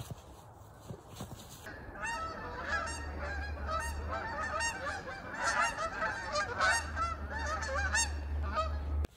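A flock of geese honking overhead, many overlapping calls starting about two seconds in and carrying on to an abrupt cut near the end.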